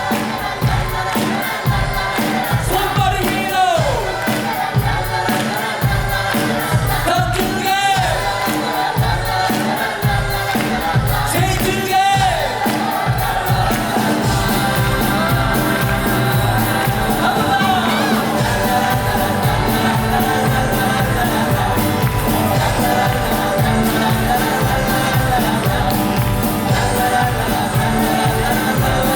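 Musical-theatre cast singing over band accompaniment with a steady beat, with audience crowd noise underneath.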